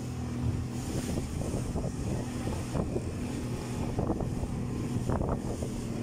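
Motorboat engine running at a steady pitch, with wind and rushing water swishing over it.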